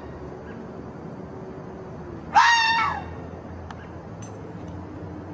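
One loud, high-pitched animal call, about half a second long, some two and a half seconds in.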